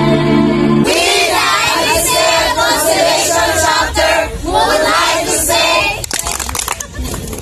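A held sung chord from a small group cuts off about a second in, and a large group of young people's voices takes over, shouting and chanting together in unison. Near the end the voices drop away and a few sharp clicks are heard.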